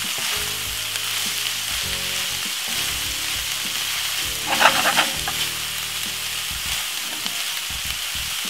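Shredded cabbage, saltfish and peppers sizzling in a frying pan while a wooden spoon stirs them, with a louder moment of stirring about halfway through.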